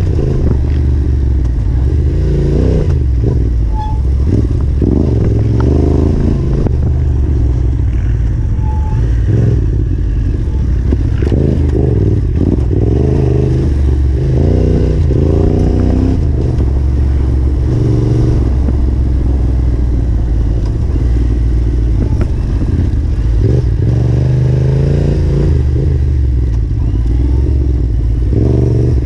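Yamaha Ténéré 700's parallel-twin engine running under varying throttle: repeated rising and falling revs as the rider blips and rolls on and off, with knocks and clatter from the bike over rough trail.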